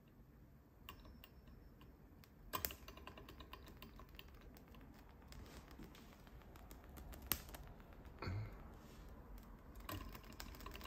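Small Manson hot-air engine ticking with a faint, rapid light clicking after its flywheel is flicked, with a few louder knocks. The engine is still warming over its spirit lamp and has not yet settled into steady running.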